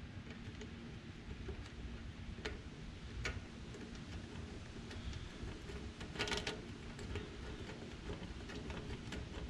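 Scattered small clicks, with a short rattle about six seconds in, from a handlebar phone mount's clamp and screw being handled and fitted to the bar, over a low steady background rumble.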